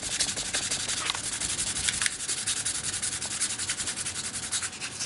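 Sandpaper rubbing against the edge of a brass Marine Band harmonica reed plate in very rapid, short back-and-forth strokes, a steady scratching that rounds and smooths the plate's edges and corners.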